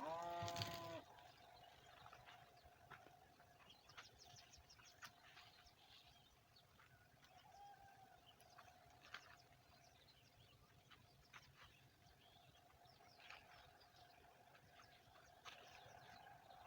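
A rooster crows once, briefly, in the first second, followed by faint scattered clicks and a faint steady tone.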